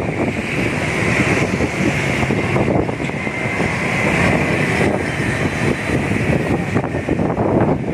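Street traffic passing, with wind buffeting the microphone.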